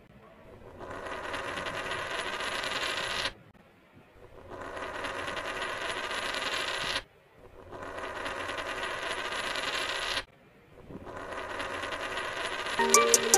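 Toy cars whirring with rapid fine clicking as a hand rolls them along a tabletop, four times. Each run lasts about two and a half seconds, builds up, and stops abruptly.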